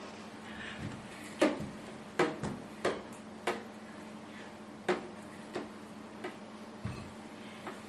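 Kitchen knife knocking on a wooden tabletop while vegetables are cut: about ten irregular sharp knocks, the loudest in the first five seconds.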